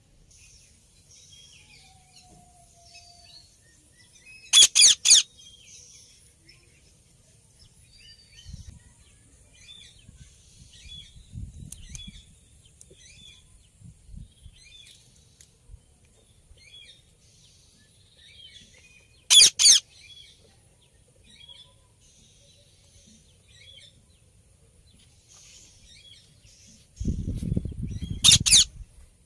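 Parrot giving loud, piercing screeches in quick bursts three times: about 5 seconds in, about 19 seconds in and near the end. Soft chirps and twitters fill the gaps between them. A low rumble joins the last screech.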